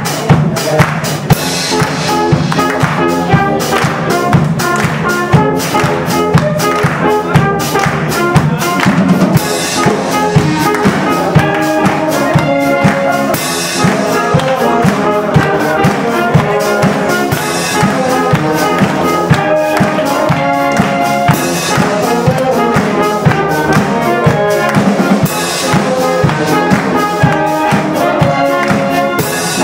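Live brass band playing an upbeat dance tune: brass, clarinet and drums with a steady beat, and a cymbal crash about every four seconds.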